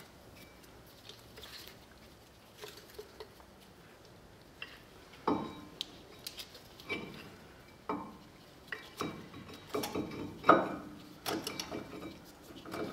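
Metal clinks and knocks as a 2001 VW Jetta's front brake caliper is worked off the disc rotor and pads. A few faint clicks come first, then from about five seconds in a string of sharper clanks, the loudest near the end.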